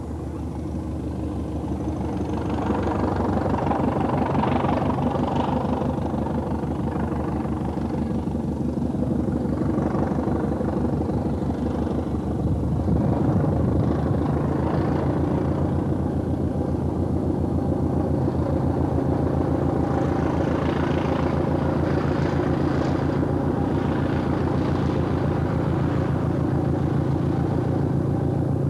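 Southern Region diesel-electric multiple unit ('Thumper') pulling away up a gradient, its English Electric diesel engine under power with a steady beat. It grows louder over the first few seconds as the train approaches, then holds steady as the coaches pass close by.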